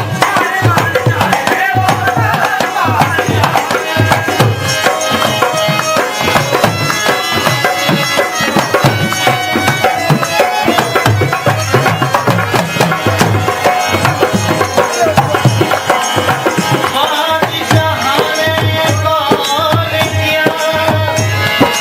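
Bhajan music: a hand drum keeps a steady rhythm of low strokes under a wavering melody.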